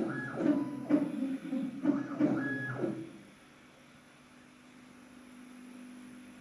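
OctaveLight resin 3D printer running: about three seconds of mechanical whirring and clicking with short tones, then a quieter steady low hum.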